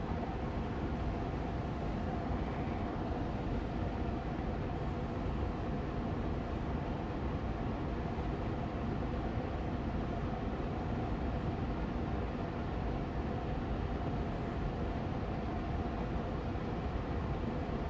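Austin Air Allergy Machine air purifier fan running steadily on medium speed: an even rushing hum with a faint steady tone in it.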